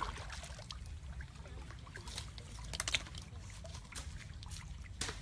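Small splashes and trickling at the edge of a shallow channel, heard as scattered short crackles over a steady low rumble.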